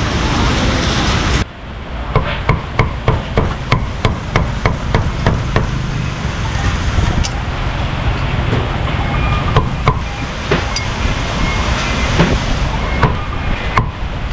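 Street noise that cuts off abruptly about a second in, then a heavy cleaver chopping roast beef on a thick round wooden chopping block. The knocks come sharp and fast, about three a second at first, then slower and irregular.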